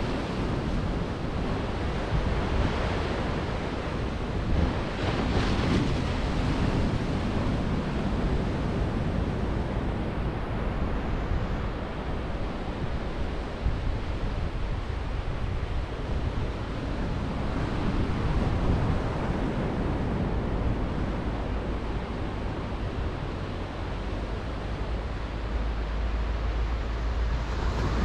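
Small ocean waves breaking and washing up a sandy beach, a steady surf that swells and ebbs every few seconds, with wind rumbling on the microphone, strongest near the end.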